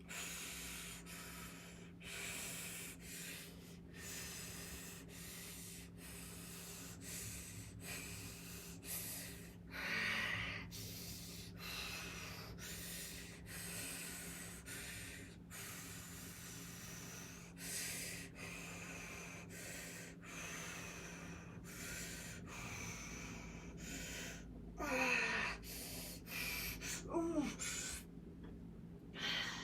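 A woman breathing hard through a set of bent-over rows: repeated short, forceful breaths about once a second, with a couple of voiced sighs or grunts near the end, over a steady low hum.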